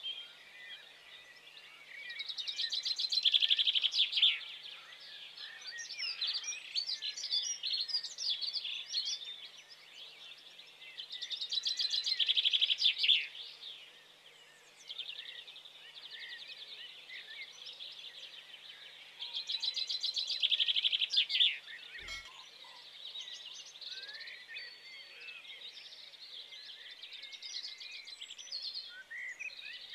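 Small birds chirping and twittering throughout, with three louder bursts of rapid trilling about eight seconds apart.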